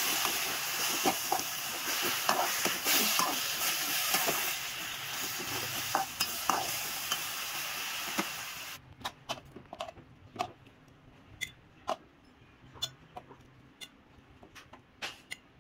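Chinese broccoli sizzling in a wok while a metal spatula stirs and scrapes it, with clacks of the spatula on the pan. About nine seconds in the sizzle cuts off suddenly, leaving separate sharp clicks of utensils as the greens are moved onto a plate.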